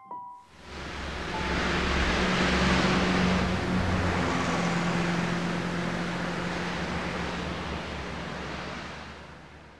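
Heavy motorway traffic of cars and lorries passing below: a steady rushing roar of tyres and engines with a low hum under it. It fades in about half a second in and fades out near the end.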